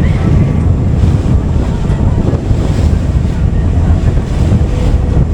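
Wind buffeting the microphone on a moving ferry, over a steady low rumble of the boat's engine and water rushing past the hull.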